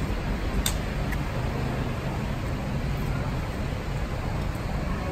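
Steady rumble of street traffic, with cars and motorbikes passing close by. A single sharp clink comes less than a second in.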